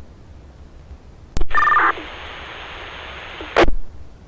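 Two-way radio channel hiss, then a radio keys up with a click and a short two-tone electronic chirp about one and a half seconds in. A brief burst of static comes near the end as a transmission drops.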